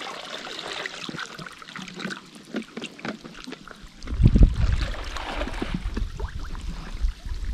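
River water trickling and splashing, with many small clicks. About four seconds in, a heavy low rumble sets in and becomes the loudest sound.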